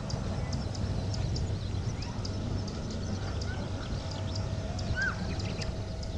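Low, steady rumble of a climbing Airbus A320-214's CFM56 jet engines. Over it are a fast, regular high ticking and a few short bird chirps, the clearest one about five seconds in.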